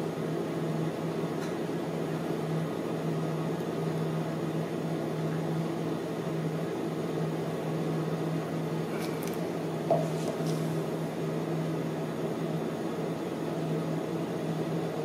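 A steady low mechanical hum, like a running appliance or fan, with one short knock about ten seconds in.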